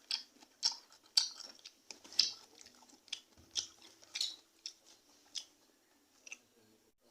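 Close-up crunching of someone chewing crisp raw papaya: about a dozen sharp crunches, roughly two a second, thinning out near the end.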